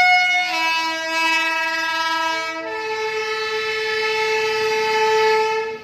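Train locomotive horn sounding one long blast of several notes together. The chord shifts about half a second in and again near the middle, then stops abruptly near the end.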